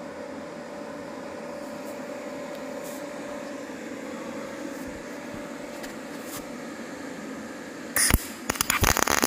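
A steady background hum, then near the end a short, loud, choppy burst of welding crackle as the sheet metal is tack-welded, with metal coat-hanger wire used as the filler.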